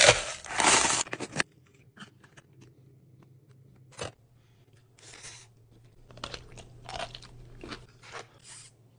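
Thin plastic cup crackling loudly as a snack insert is pressed into it. Later come a few small clicks and bursts of crunchy chewing.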